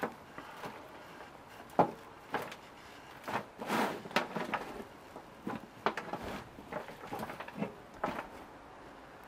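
Bare hands rummaging and sifting through loose compost and potato roots in a wheelbarrow, making irregular rustling and scraping sounds, with one sharper sound a little under two seconds in.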